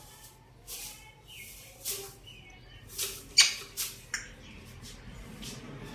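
African grey parrot making a string of short, scratchy squeaks and clicks, about six in all, the loudest a little past three seconds in.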